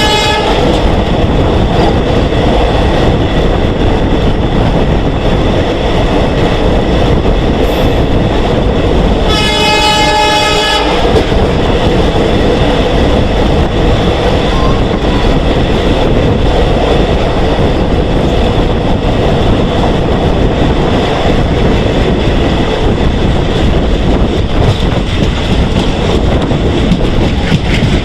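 Steady loud running noise of a moving passenger train's wheels on the track. The WDM3D diesel locomotive's horn sounds twice: the end of one blast right at the start, and another of about a second and a half about nine seconds in.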